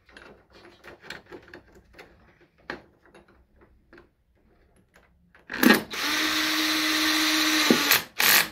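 Cordless drill-driver running for about two seconds as it drives in a screw to fasten a cover on the scooter, with a second short burst near the end. Before it come light clicks and rattles of screws and parts being handled.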